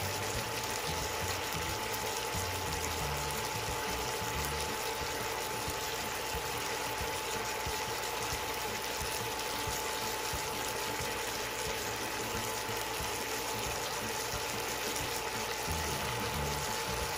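Pineapple, pepper and onion sauce boiling in a pan on a portable induction cooktop: a steady bubbling as it reduces, with a constant thin tone underneath.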